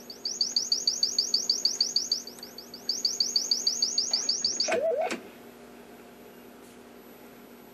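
A test signal of rising chirp tones repeating about nine times a second, played through a Westinghouse H-196 television's audio amplifier and speaker during audio-stage testing. Near five seconds in, the sweep drops briefly to a much lower pitch and then stops, leaving a faint steady hum.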